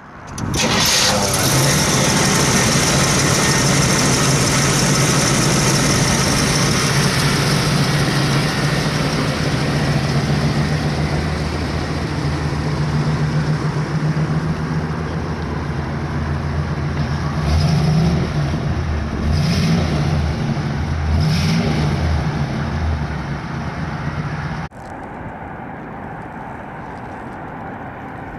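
1977 Oldsmobile Cutlass Supreme's 350 Rocket V8 running at a steady idle, blipped up briefly three times past the middle. Near the end it is heard more faintly as the car drives slowly.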